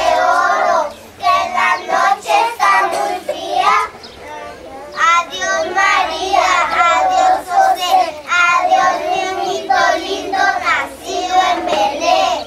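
Children singing together in phrases, with short breaks between lines.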